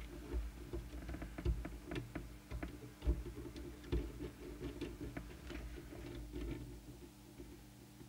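Small irregular clicks and scratches from an adjusting tool twisting a preset potentiometer back and forth on a CB radio circuit board, to clean a preset that has stopped working. A low steady hum runs beneath.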